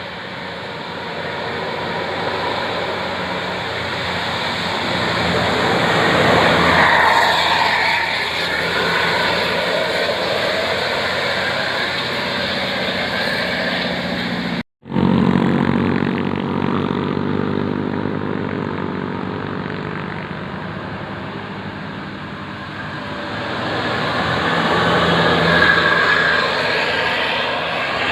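Large vehicles, likely buses, passing on a road: engine and tyre noise swells as one goes by about seven seconds in and another near the end. The sound cuts out for a split second about halfway through.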